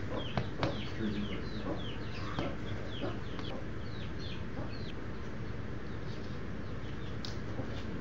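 Baby chicks peeping: quick, high, falling chirps, several a second, that thin out and stop about five seconds in. A few sharp taps near the start, the Giant Cochin rooster pecking at the floor.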